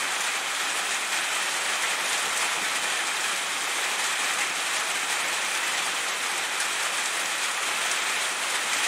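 Steady rain falling, an even hiss of drops with no breaks.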